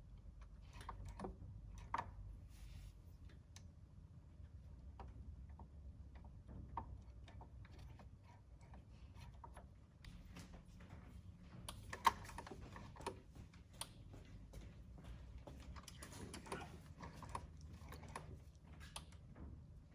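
Scattered light clicks and taps of hands and a spanner working on a KTM 50SX dirt bike's rear brake while it is bled, irregular and busier in the second half. A low steady hum runs underneath.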